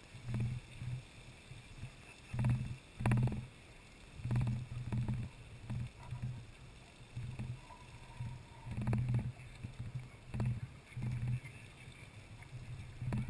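Lady Knox Geyser erupting, a column of water and steam jetting from its cone. Irregular low bursts come every second or so over a faint steady hiss.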